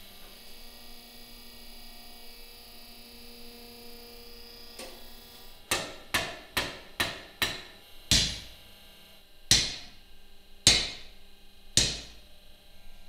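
A steady machine hum, then a blacksmith's hand hammer strikes a red-hot iron bar on an anvil: five quick lighter blows, then four heavier blows about a second apart, each ringing briefly.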